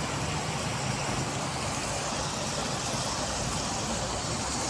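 Steady rushing noise with a low hum underneath, even throughout with no distinct strikes or changes.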